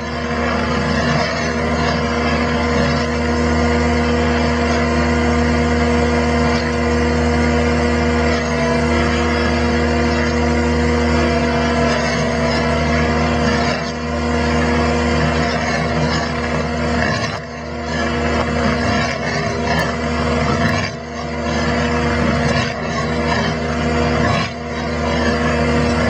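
Tracked skid steer's engine running steadily under load, driving the hydraulics of a Fecon Stumpex auger stump grinder as it bores slowly into a stump. A steady drone with a constant whine over it, dipping briefly a few times in the second half.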